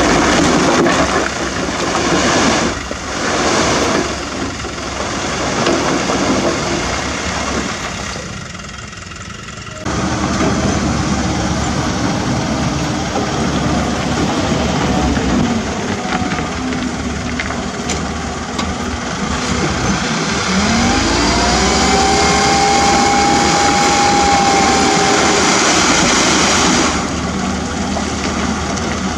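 Diesel engines of dump trucks and a CAT 320D2 hydraulic excavator running, with rocks rattling as they slide out of a tipping dump truck's bed near the start. Later a whine rises and then holds steady for several seconds, as a dump truck's hydraulic hoist raises its bed to tip dirt.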